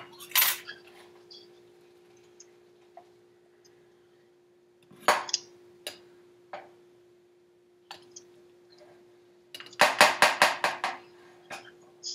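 Kitchen dishes being handled: a bowl knocked and set down a few times, then a quick run of about nine clinks near the end, over a faint steady hum.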